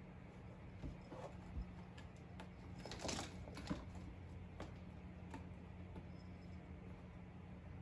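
Cats moving about on a carpeted cat tree: faint scattered clicks and a brief scratchy rustle about three seconds in, over a steady low hum.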